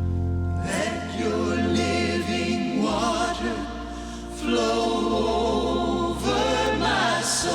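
Gospel choir singing with a band, voices wavering on held notes over sustained bass notes.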